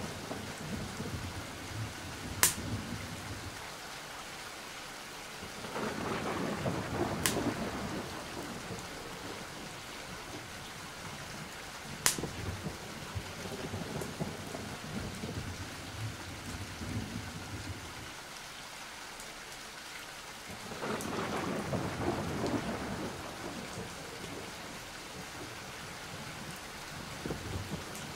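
Steady rain with two rolls of thunder swelling and fading, one about six seconds in and one about twenty-one seconds in, and a few sharp, isolated clicks between them.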